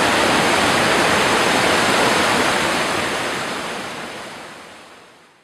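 Waterfall water rushing and splashing onto rocks, a steady dense rush that fades out from about two seconds in.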